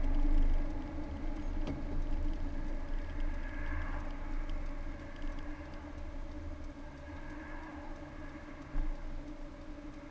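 Car engine and road noise heard from inside the cabin as the car slows down and comes to a stop in traffic, the low rumble dying away toward idle. A short thump comes near the end.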